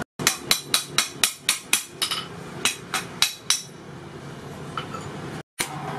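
Hand hammer striking a steel hoe's rolled socket on a post anvil: about ten quick ringing blows, then four slower ones, stopping about three and a half seconds in.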